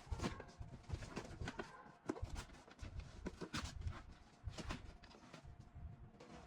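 Irregular light clicks and taps of computer parts being handled and fitted during a PC build, several a second.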